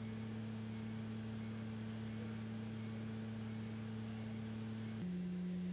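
A steady low hum of a few pure tones that switches abruptly to a different, lower tone about five seconds in.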